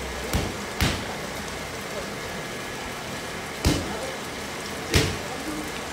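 Boxing gloves punching handheld focus mitts in Muay Thai pad work: four sharp smacks, two close together in the first second and two more later, about four and five seconds in.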